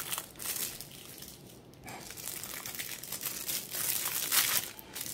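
Clear plastic wrapping on a pack of photo paper crinkling in irregular bursts as it is handled and worked open, thinner about a second in and busier toward the end.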